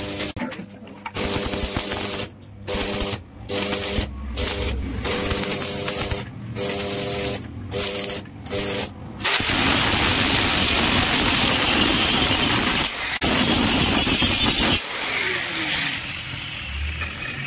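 Stick (arc) welding on steel: the electrode arc crackles and sizzles in short bursts with brief breaks, over a steady low hum, for the first nine seconds or so. It then runs in one continuous loud sizzle for about five seconds before stopping.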